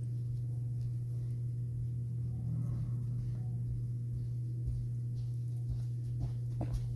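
A steady low hum, with a few faint clicks near the end.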